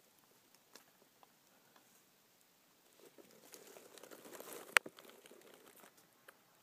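Hatchling red-footed tortoise feeding among leafy greens and moss in a plastic tub: scattered small clicks, then a few seconds of leaf crinkling and rustling about halfway through, with one sharp click in the middle of it.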